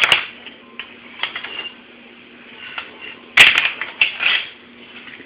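Silverware and dishes clinking and clattering in a dishwasher's racks and cutlery basket as a small child pulls at them: a few separate knocks and rattles, the loudest about three and a half seconds in.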